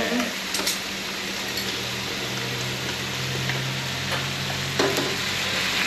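Pad Thai noodles and sauce sizzling in a hot wok on high heat while a metal spatula stirs and flips them, with a few clinks of the spatula against the wok.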